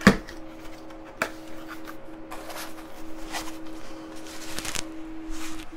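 Packaging being handled: a sharp knock right at the start, another about a second in, then short rustles and scrapes as cardboard is fitted into a foam tray, over a steady low hum.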